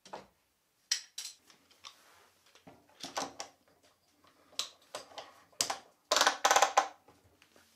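Metal bar clamp being handled and tightened onto a plywood workbench top, a series of sharp clicks and clacks, then a quick rattling run of clicks about six seconds in.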